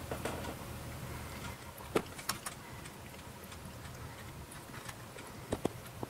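A few short, sharp clicks: one about two seconds in, two more just after, and a quick pair near the end, over a faint low hum.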